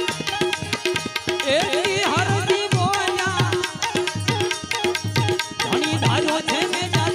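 Gujarati devotional bhajan music: a hand drum keeps a steady rhythm, and a wavering, gliding melodic line comes in about one and a half seconds in.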